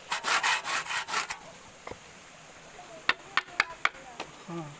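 About six quick rasping strokes of something rubbing against wood in the first second or so, followed by a few sharp clicks and taps.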